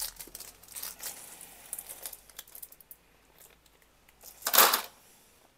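Small plastic ziplock bag crinkling as it is opened and handled, with light clicks of small wooden game tokens. A louder crinkle of plastic comes about four and a half seconds in.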